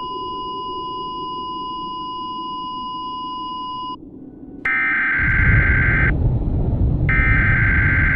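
A steady electronic test tone, like a broadcast 1 kHz test tone, cuts off about four seconds in. After a short gap, a louder electronic alarm tone sounds in long beeps, each about a second and a half with about a second between them, over a low rumble.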